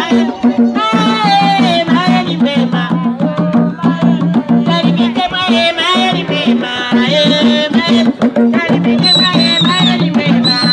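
Lively music: drums beating steadily under several voices singing.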